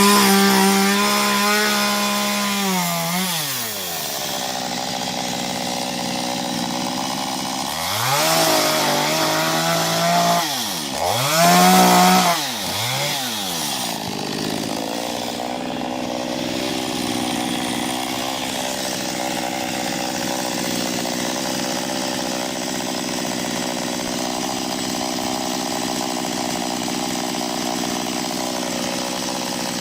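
Small chainsaw with a 15-inch bar running at high revs, then falling to idle after about three seconds. It is revved up and let down twice more around a third of the way in, then idles steadily.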